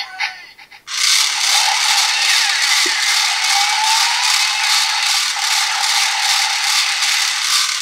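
Battery-powered Bandai DX Drill Crusher toy from Kamen Rider Build spinning its plastic drill bit after a trigger pull. Its motor and gearing make a loud rattling whir with an even pulse, starting about a second in. The noise nearly drowns out the toy's electronic sound effects.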